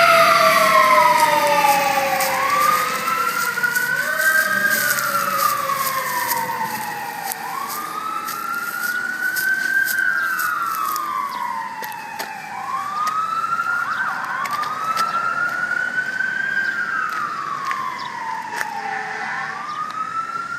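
Fire truck's electronic Whelen siren in a slow wail, rising and falling about every five seconds. Over the first few seconds a second, lower siren tone winds steadily down, the mechanical Q siren coasting to a stop.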